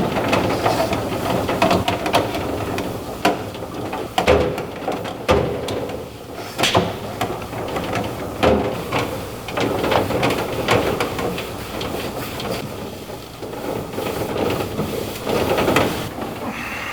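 A cloth rubbing over the inside of a steel toolbox drawer during a quick wipe-down with spray detailer, with several sharp metal knocks as the drawer and its contents are handled.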